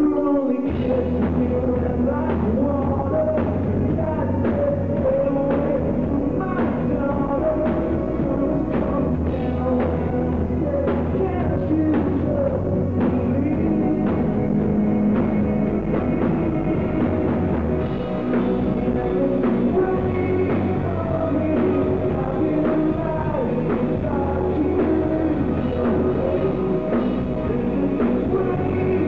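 Live rock band playing: a male lead vocal sung into a microphone over electric guitar, electric bass and a drum kit.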